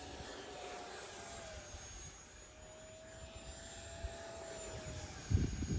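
Electric ducted fan of an RC T-33 Shooting Star model jet whining steadily as it flies, its pitch dropping a little about a second and a half in and again near the end. A few low thumps come near the end.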